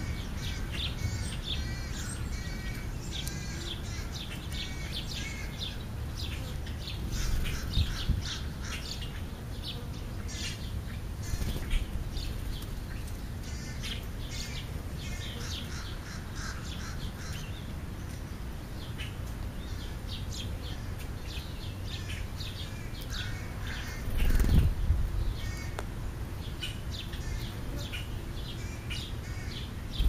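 Juvenile European starlings calling almost continuously in rapid short chirps, over a steady low rumble. A few louder low thuds break in, the loudest about three quarters of the way through.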